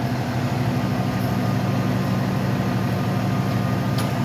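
A heavy vehicle's engine idling steadily with a low hum, over street traffic noise. A brief click near the end.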